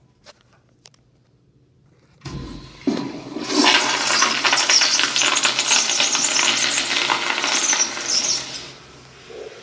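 Zurn commercial flushometer toilet flushing: a sudden thump about two seconds in as the valve opens, then a loud, even rush of water for about five seconds that dies away near the end.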